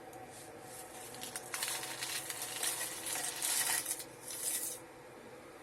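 Dry fusilli pasta poured into an electric kettle of boiling water, a rapid clatter of many small pieces dropping in for about three seconds, starting about a second and a half in.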